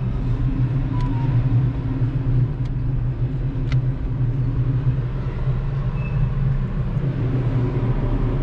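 Steady low rumble of a car and city traffic heard from inside the cabin with the sunroof open, with a couple of faint clicks.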